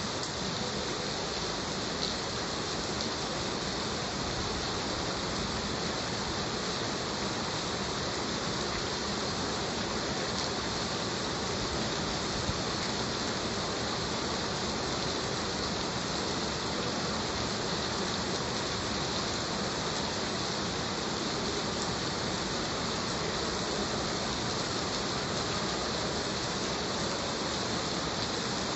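Heavy rain falling steadily, an even hiss of drops with a brighter top end and no letup.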